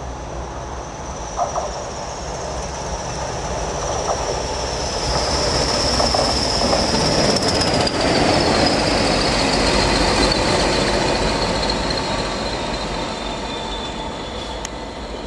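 Two Class 20 diesel locomotives running past together, their English Electric eight-cylinder engines running steadily with a high whistle that slides slowly down in pitch. The sound grows to its loudest about halfway through as they pass close, then fades as they move away.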